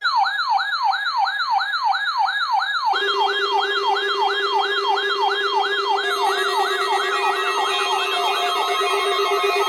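Electronic siren-like emergency alert attention tone: a loud tone sweeping downward over and over, about three times a second. A steady lower tone joins about three seconds in, and more tones layer on about six seconds in.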